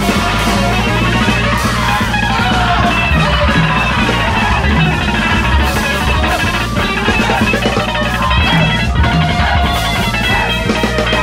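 Small live band playing an original song: electric guitar, bass, keyboard and a drum kit played with sticks on snare and cymbals.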